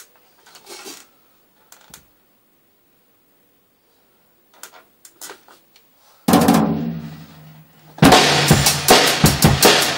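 Drum kit played with bamboo Hot Rods. A few faint taps come first, then about six seconds in a single loud hit rings and dies away. From about eight seconds there is a fast run of strokes across the drums and cymbal.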